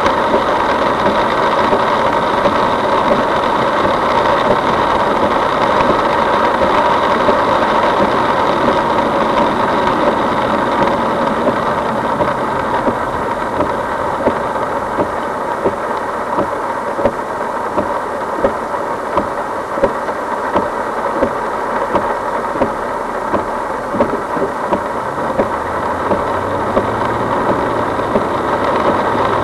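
Heavy typhoon rain and road noise heard from inside a moving car, a steady loud rush with the engine humming under it and scattered sharp ticks.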